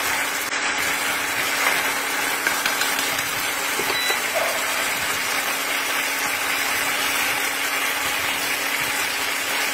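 Tomato sauce bubbling and sizzling steadily as it reduces in a nonstick pan on an induction cooktop, with a steady hum underneath. A few light taps of chopsticks against the pan as the meatballs are turned.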